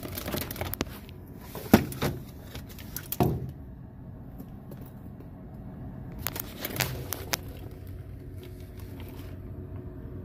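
Hands handling the plastic spiral-motor assembly and wiring inside a snack vending machine: scattered clicks and knocks, a few near the start and a small cluster about six to seven seconds in, over a steady low hum.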